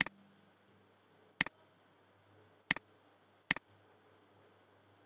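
Computer mouse button clicked four times at uneven intervals, each a sharp press-and-release tick, over a faint low hum.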